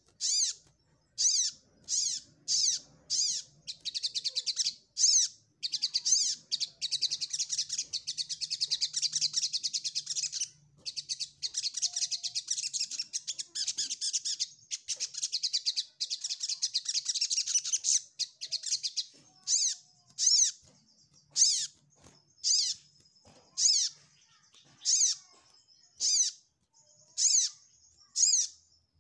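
Sogok ontong, a small sunbird-family songbird, giving its challenge call to a rival: sharp, high, falling chirps about one a second, breaking about three seconds in into a long, rapid twittering song that runs for some fifteen seconds before returning to single chirps.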